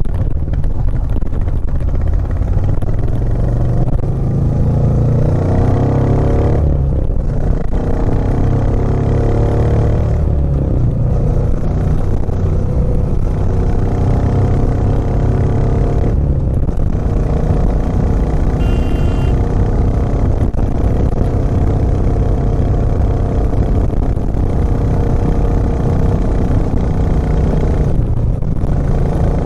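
Royal Enfield Classic 350's single-cylinder engine running steadily as the motorcycle rides along, its note easing briefly a few times.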